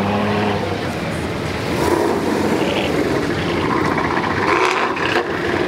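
Cars driving slowly past one after another, engines and exhausts running at low speed. A deep, steady exhaust note fades in the first half second, then gives way to a more even engine and tyre sound.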